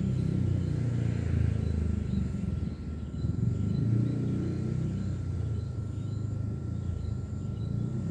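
Low rumble of a motor vehicle engine running, its hum wavering a little in pitch.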